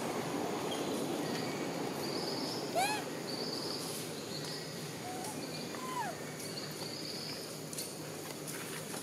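Two short calls from a long-tailed macaque, most likely the infant: a loud squeal that rises and falls about three seconds in, and a quieter falling call about six seconds in. A high chirp repeats about once a second over steady outdoor background noise.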